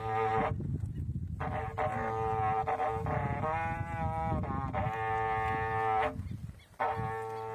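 Berrante, the Brazilian drover's cattle-horn trumpet, blown to call the herd: long held notes, with a short pause about half a second in and another near the end, and a wavering, warbling passage in the middle.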